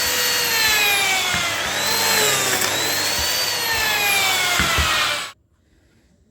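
Lamello Zeta P2 joining machine running, its motor whining at high speed; the pitch sags and recovers as it loads up while the cutter plunges into the pine. The sound stops abruptly about five seconds in.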